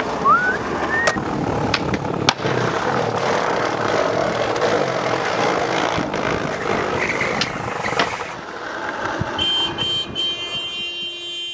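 Skateboard wheels rolling steadily over asphalt and brick paving, broken by several sharp clacks of the board popping and landing. Near the end a ringing chime-like tone comes in.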